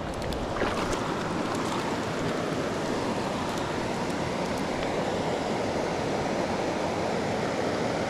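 Steady rush of a clear mountain creek flowing over rocks.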